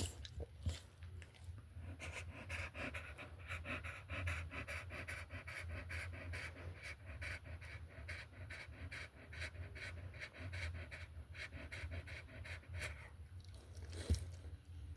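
Rapid, rhythmic panting that starts about two seconds in and stops about two seconds before the end. A sharp click comes near the start and another near the end.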